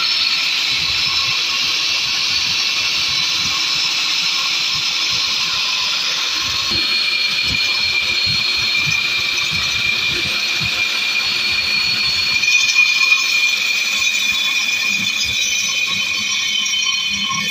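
Electric diamond core drill with a water feed boring through a concrete slab: a steady high-pitched whine from the motor and the spinning core bit grinding in the cut.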